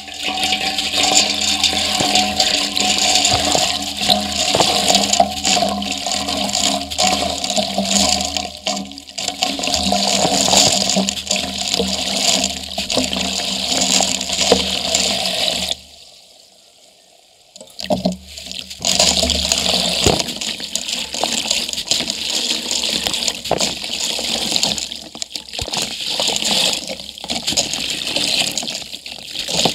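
Dry, grainy concrete crumbled by hand, its grit and powder streaming onto the bottom of a steel bucket in a continuous rushing hiss. The sound breaks off for about two seconds around the middle.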